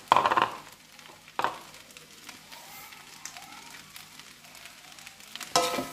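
Metal spatula scraping and clanking against an aluminium wok of frying rice: a loud ringing stroke right at the start, another about a second and a half in, and a third near the end, with a low frying sizzle between.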